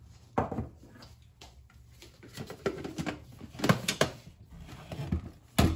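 A string of knocks and clatters of plastic kitchenware: a blender jug's lid being fitted and small bowls set down on a worktop, with the loudest knock near the end.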